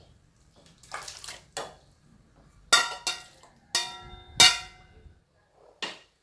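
Dishes and kitchen utensils clattering: a series of sharp knocks and clinks, several of them ringing briefly.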